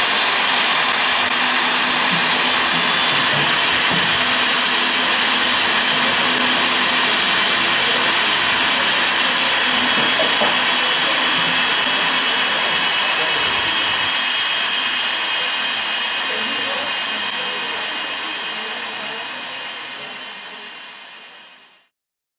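Corded Bosch electric drill running steadily under load as a long bit bores through a plate, a loud even whine and hiss of the motor that fades out over the last several seconds.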